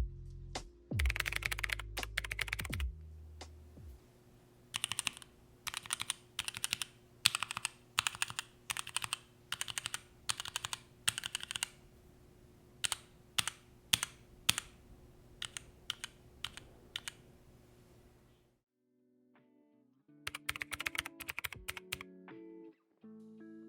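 Keystrokes on an Amazing9 mechanical numeric keypad, clicking at about two a second with a few quick runs. A short pause comes before a final burst of typing. Faint music plays underneath.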